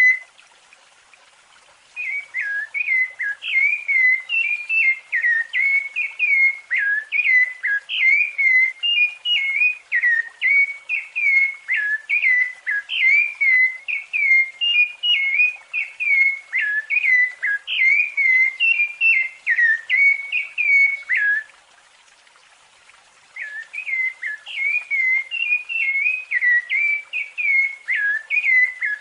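Rufous-bellied thrush (sabiá-laranjeira) singing its fluty song: a fast, unbroken run of clear whistled notes, each dipping and rising in pitch. The song stops twice for about two seconds, just after the start and about three-quarters of the way through.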